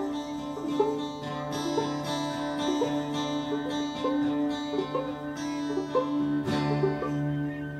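Instrumental music: plucked string notes starting about every half second over steady held low tones, with no singing.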